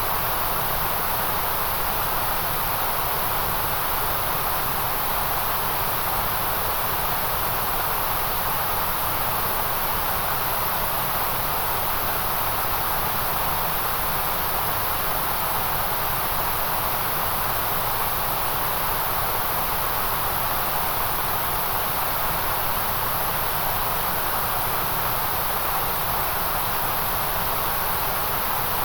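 Steady, unbroken white noise: an even, constant hiss with no change in level or pitch, brightest in the middle and very top of the range.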